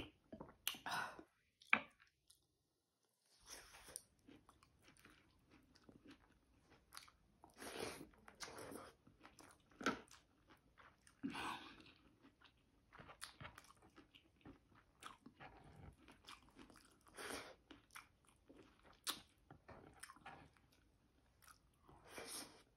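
Close-miked chewing and biting while eating pork sinigang with rice: soft, irregular mouth sounds with occasional crunches, beginning with a sip of broth from a wooden spoon.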